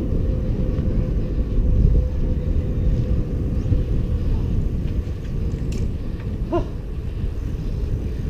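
Steady low rumble of wind buffeting the microphone of a camera on a moving bicycle, mixed with tyre noise on a concrete road.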